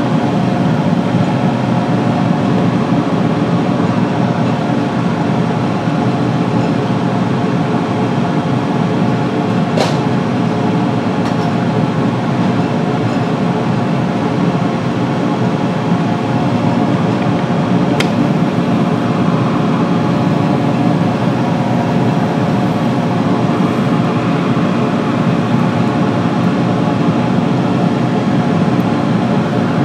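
Steady electric motor hum from the lathe workshop, even and unchanging, with two sharp clicks, about ten and eighteen seconds in.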